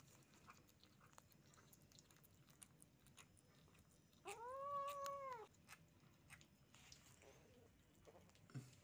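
Kitten giving one drawn-out meow about four seconds in, rising, holding and falling in pitch. Faint clicks of kittens chewing and smacking sticky steamed shark meat around it.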